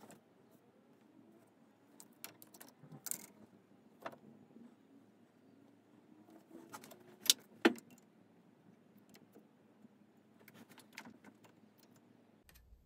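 Light metallic clicks and taps of a steel vernier caliper and a steel shaft being handled at a lathe that is not running, with two sharper clicks close together just past the middle.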